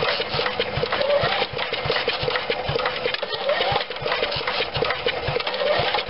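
Briggs & Stratton 5 hp single-cylinder engine on a chipper shredder being cranked with its recoil pull-starter, about three pulls some two seconds apart, each a rising whir with rapid clicking as the engine turns over. It does not catch: its diaphragm fuel pump has not yet drawn fuel up to the carburetor.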